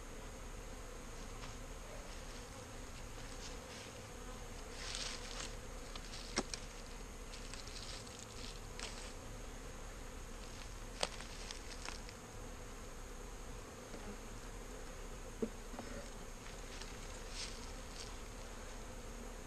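Honey bees buzzing steadily around freshly installed hives, with a few sharp knocks from wooden hive equipment being handled.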